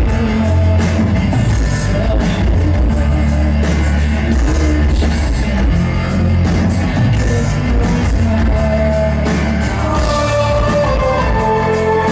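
Loud live synth-pop band performance: a male singer's voice over a heavy, steady bass and synthesizers, with sustained vocal notes coming through more clearly near the end.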